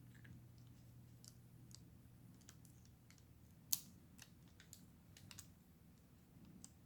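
Faint, scattered light clicks of a precision screwdriver and small screws being worked into a MacBook Pro's battery, with one sharper click about halfway through.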